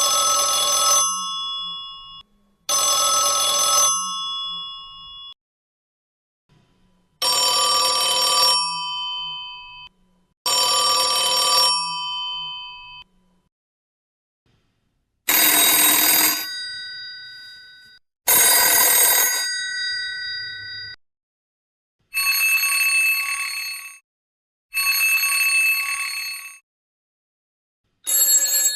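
Telephone bells ringing in pairs of rings. Each ring is a rattling peal that fades out, and the bell sound changes with each pair, so four different phone rings are heard in turn.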